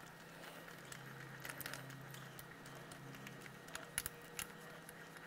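Faint metal clicks and ticks of a socket being turned by hand on the nut of a front crankshaft seal installer as it presses the new seal in, over a low steady hum; the two loudest clicks come about four seconds in.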